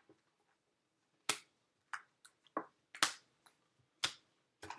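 About six short, sharp taps on a wooden tabletop, irregularly spaced, with near silence between them.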